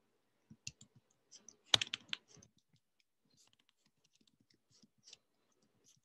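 Typing on a computer keyboard: an irregular run of key clicks, loudest about two seconds in and fainter after that.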